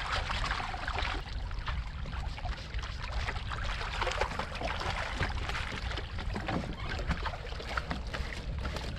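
Small waves lapping and splashing against shoreline rocks in an irregular patter, over a steady low rumble.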